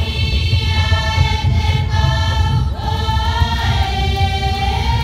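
Traditional Marquesan chant: a voice holding long sustained notes that slide down in pitch and back up about four seconds in, over a low rumble.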